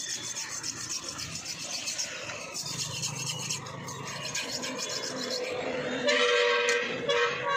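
Rubbing and scraping as a hanging goat carcass is skinned by hand. About six seconds in, a loud horn sounds at a steady pitch, twice in quick succession, drowning out the rest.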